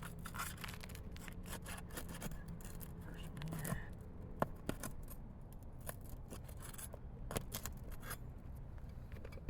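Asphalt roof shingles being pried up and worked loose by hand to reach the nails: irregular scraping, rubbing and clicking, with sharper ticks about four and a half and seven and a half seconds in.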